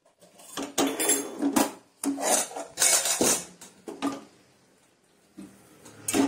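Metal cookware clattering: a small tempering ladle and steel pots knocked and set down on a steel gas stove top, in a series of quick knocks and scrapes with a short lull before more near the end.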